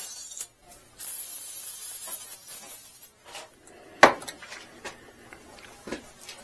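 Aerosol can of WD-40 hissing as it is sprayed into the boot of a spark plug wire, starting about a second in and fading over a second or two. A single sharp knock about four seconds in.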